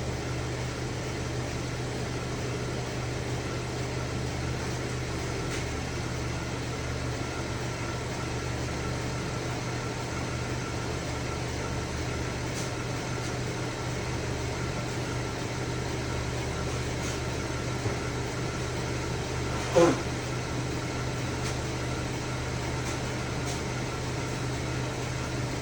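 2010 Chevy Traverse's V6 engine idling steadily while it is checked for cylinder misfires, with none currently registering. A single short, sharp sound about twenty seconds in is the loudest moment, with a faint click a couple of seconds before it.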